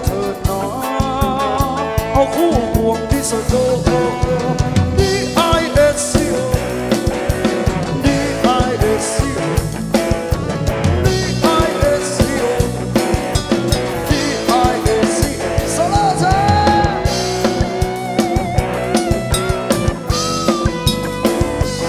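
Thai ramwong dance-band music taken from the mixing desk: a drum kit keeping a steady beat under bass and a melody line that slides and bends in pitch.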